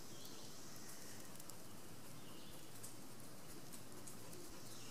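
Faint woodland ambience: a steady low hiss with scattered faint high ticks.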